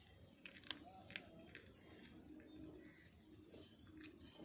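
Cat chewing a leg-piece bone, with a few sharp crunches about a second in and again near the end.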